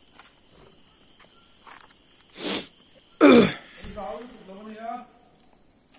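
Crickets trilling steadily at a high pitch, with a person's voice breaking in twice around the middle in two short, loud outbursts, the second the louder with a falling pitch, followed by a few words of low talk.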